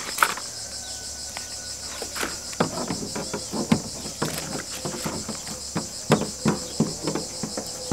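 Scissors snipping through fly netting in a run of short, irregular cuts, over a steady, high-pitched insect chorus.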